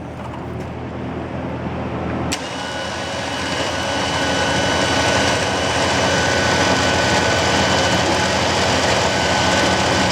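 Electric winch switching on with a click about two seconds in, then running steadily with a high motor whine and gear noise that builds in loudness, over a steady low hum.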